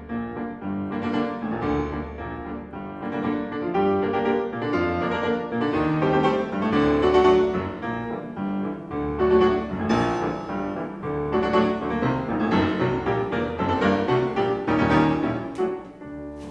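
Background music: a piano piece.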